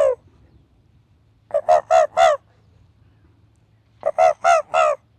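A man imitating the barking call of a red fox in falsetto voice: the 'wo-wo' bark. Two runs of about four short, yelping barks, the first about a second and a half in and the second about four seconds in, with quiet gaps between, plus the last bark of an earlier run at the very start.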